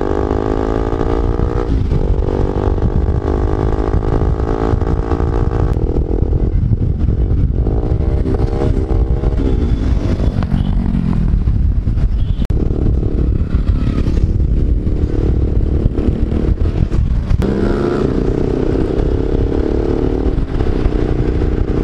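Motorcycle engine running on the move over a heavy low rumble. Its pitch holds steady, then shifts several times as the revs change.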